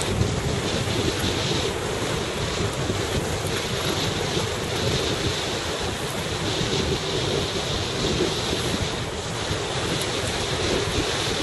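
Steady wind noise buffeting the microphone over the wash of the sea, heard from a boat underway.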